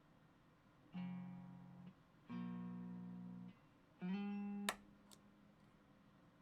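Fender Stratocaster's neck single-coil pickup through a Xotic Effects SL Drive overdrive pedal in its super bass mode and an Orange Micro Dark amp: three short bursts of overdriven electric guitar, each held about a second. The third is slid into and cut off with a click.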